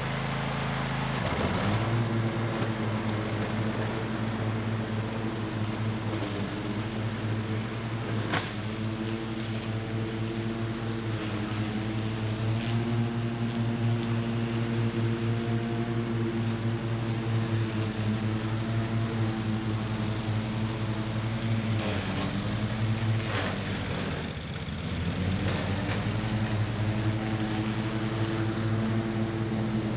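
Zero-turn riding mower's engine running steadily while it cuts thick pasture grass. The engine note dips briefly about a second in and again for a couple of seconds later on.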